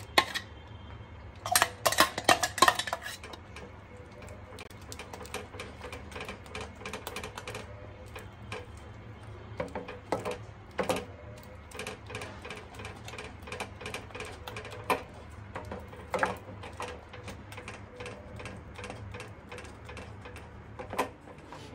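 A spatula scraping and tapping against the pan while stirring mango puree into thick phirni: a run of irregular clicks and scrapes, busiest about two seconds in.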